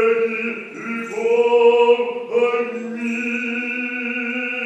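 Orthodox liturgical chant: voices singing long held notes, moving to new notes about a second in and again just after two seconds.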